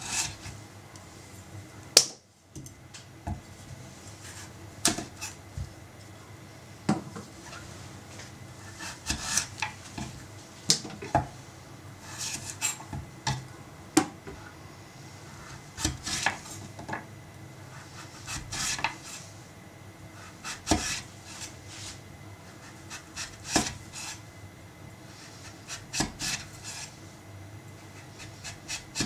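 Kitchen knife cutting a kabocha squash on a wooden cutting board: the blade grates through the hard rind and dense flesh, and each stroke ends in a knock on the board, repeated at irregular intervals. One sharp, loud knock about two seconds in.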